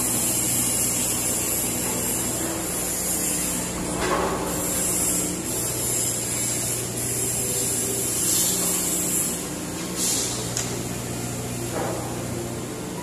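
Komatsu PC78UU mini excavator's diesel engine running under hydraulic load as the boom and arm move, with a steady high hydraulic hiss. The engine note shifts pitch about halfway through, and there are short louder hisses a few times.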